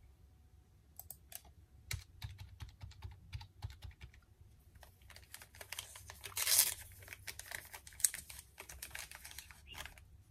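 Quick light clicks and taps of hands handling small things on a desk, with a louder burst of paper rustling about six and a half seconds in.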